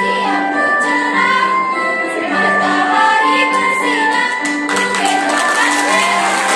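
A girls' school choir singing a song together in held notes.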